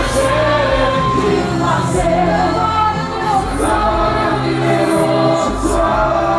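Congregation singing a gospel hymn together with musical accompaniment, many voices holding long notes.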